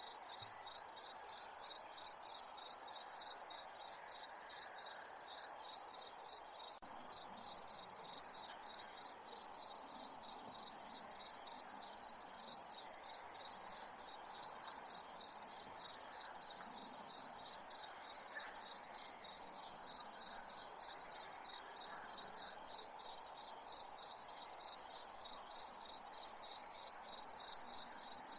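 Crickets chirping at night in a steady, even rhythm of high-pitched chirps, a couple a second.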